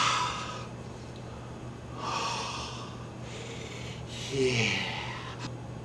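A man's breathy sighs, three of them about two seconds apart, the last ending in a short falling voiced moan.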